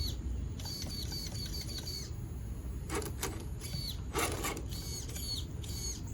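Reefs 555 steering servo, fed 6 volts, whining in short high-pitched bursts as it swings the RC truck's steering back and forth, with a quick run of rapid twitches about a second in. Two louder clatters come about three and four seconds in.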